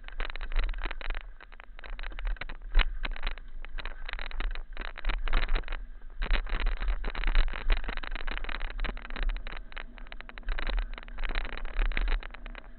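Continuous wind rush and jolting rattle picked up by a moving action camera, with irregular knocks and a steady low rumble throughout.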